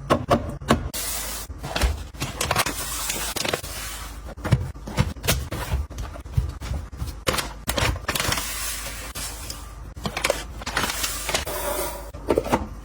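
Hands handling packaging and containers: a run of quick clicks and taps mixed with rustling.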